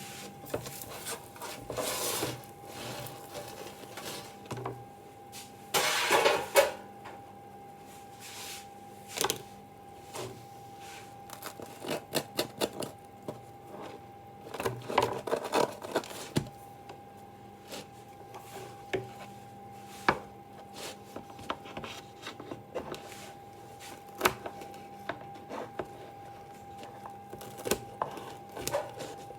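Kitchen handling noises: scattered clicks and light knocks with a few short rubbing or rustling bursts, the loudest about six seconds in, over a steady faint hum.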